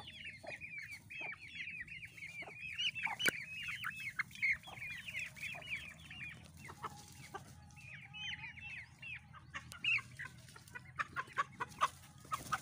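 Young Aseel chickens peeping in rapid, high, falling chirps that thin out for a couple of seconds midway, followed by a few sharp clicks near the end.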